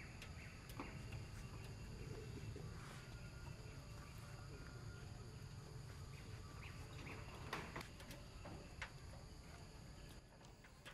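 Faint outdoor ambience: a steady, high insect drone over a low rumble, with a few scattered faint clicks and short chirps.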